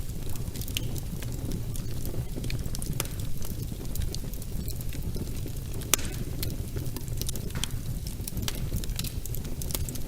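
Wood fire burning in a fireplace: a steady low rumble of flames with scattered crackles and pops, one sharper pop about six seconds in.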